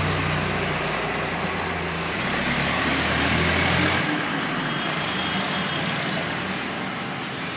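Electric hair clippers with a zero guard running, buzzing steadily as they cut hair. The deepest part of the hum drops away about four seconds in.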